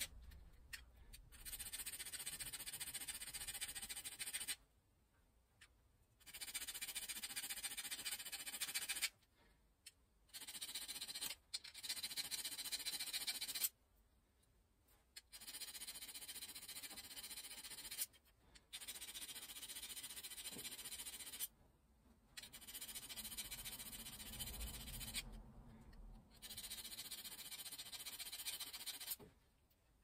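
A metal turning-tool blade being honed by hand: a hissing scrape in spells of one to four seconds, each stopping abruptly before the next.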